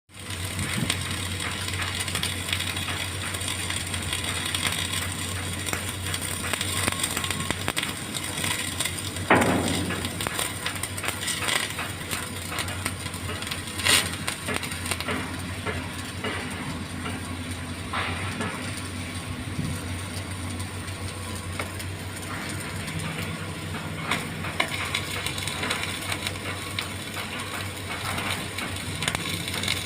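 MIG welding arc crackling steadily over a steady low hum, with a couple of louder knocks in the first half.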